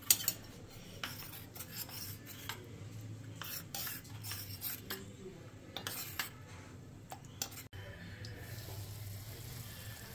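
A spoon stirring cornflour into cold water in a small bowl, with repeated light clinks against the bowl that stop about three-quarters of the way through. A low steady hum runs underneath.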